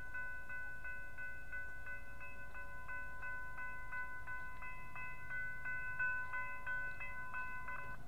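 Railroad grade-crossing warning bell ringing at about three strokes a second while the crossing gates lower. It stops just before the end, once the gate arms are down.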